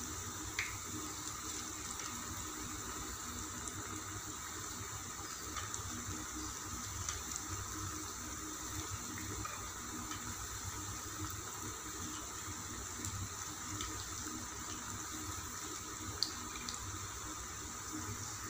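Chow chow (chayote) pakodas deep-frying in hot oil in a kadai: a steady sizzling and bubbling, with a few light clicks.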